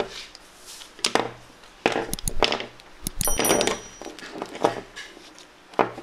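Plastic spring clamps being unclipped from a knife handle and set down on a hard worktable: a series of sharp clacks and knocks, the last one near the end. A brief high ringing note sounds about three seconds in.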